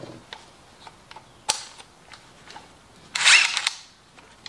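A Craftsman cordless drill being handled with a Kreg stepped pocket-hole bit just fitted in its chuck: a sharp click about a second and a half in, a few light ticks, then the drill spinning briefly, under a second, about three seconds in.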